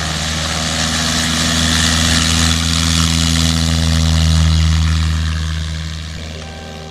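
Single-engine light aircraft's piston engine and propeller running at a steady pitch as the plane rolls past, growing louder to a peak about four and a half seconds in, then fading as it moves away.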